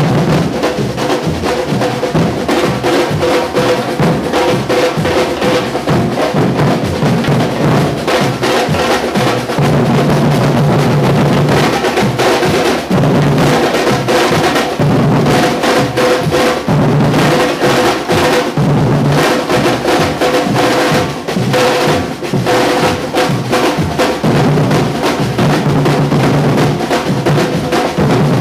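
Afro-Brazilian batuque percussion ensemble playing a loud, dense drum rhythm with many strokes a second over a steady low drum pulse.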